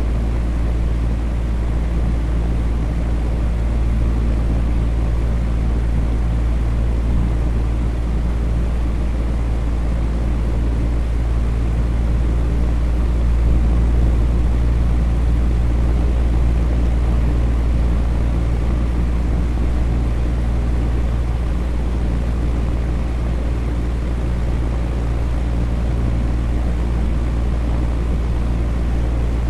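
Electric fan running steadily: a constant, deep whoosh of moving air with a faint low hum from the motor underneath, unchanging throughout.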